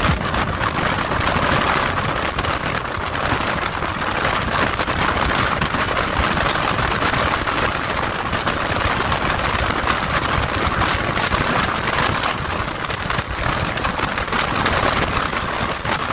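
Steady rush of wind and road noise from a motorcycle cruising at highway speed.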